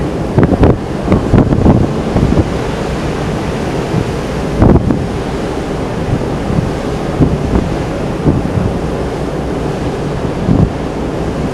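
Wind buffeting the microphone over the steady rush of the open sea, aboard a ship under way. Uneven gusts spike sharply, with the strongest about half a second in and again near five seconds in.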